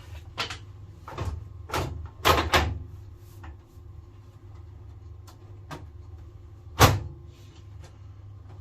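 A run of sharp knocks and clatters as hard parts are handled, a few in the first three seconds and one loud knock about seven seconds in, over a low steady hum.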